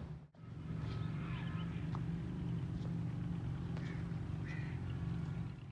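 A steady low hum with a few short, faint bird calls over it.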